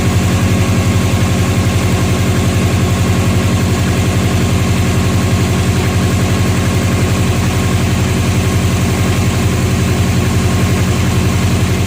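2002 Subaru WRX's turbocharged 2.0-litre flat-four engine idling steadily with a fast, even pulse, the exhaust fully bolted on.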